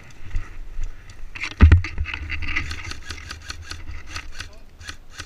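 Quick footsteps on dry, stony ground and branches scraping past as a person runs and scrambles up a scrubby slope, with a heavy thud about one and a half seconds in. A low rumble of wind and movement sits under it.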